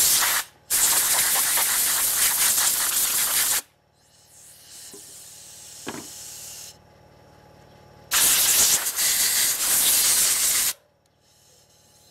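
Compressed-air blow gun hissing in blasts of about three seconds, blowing dust and debris off a chainsaw to clean it, with a quieter stretch of hiss between the loud blasts.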